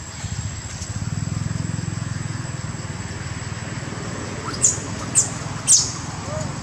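A small engine running steadily, a low hum that grows louder about a second in. Near the end come three short, high chirps about half a second apart, each falling in pitch.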